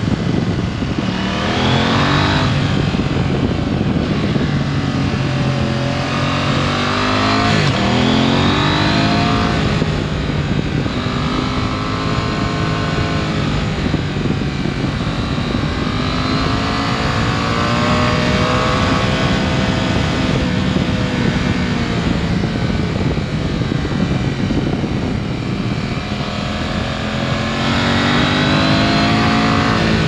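2021 KTM 890 Adventure's parallel-twin engine under way. The revs climb sharply about two seconds in, again around eight seconds and near the end, with gentler rises and falls between, over wind rushing across the microphone.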